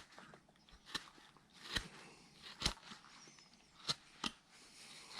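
Large number 5 carving gouge shaving chips off a wooden carving by hand: a handful of short, sharp cuts spaced about a second apart.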